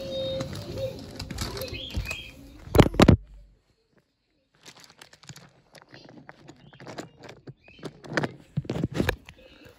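Rustling and clattering handling noise, with two sharp knocks about three seconds in, a second of near silence, then scattered taps and knocks ending in a few loud strikes.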